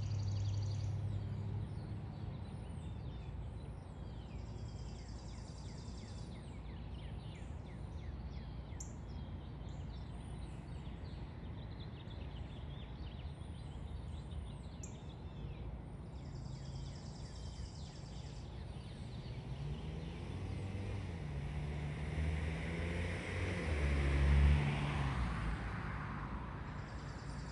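Outdoor background noise with a steady low rumble of traffic. Near the end a vehicle passes, swelling to its loudest and then fading.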